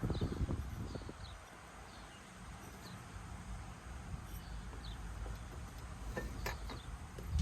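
Quiet outdoor background with a few short chirps from small birds. There is a low rumble and knocking in the first second, and a few sharp clicks about six seconds in.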